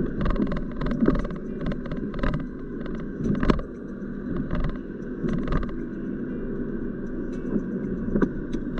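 Car driving on a wet road, heard from inside the cabin: steady road and engine rumble with scattered sharp ticks and taps. The windscreen wiper sweeps the glass near the end.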